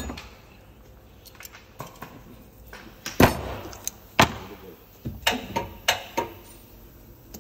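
Sharp knocks as balancing weights are fitted to a car wheel rim: two strikes about a second apart, then four quicker ones.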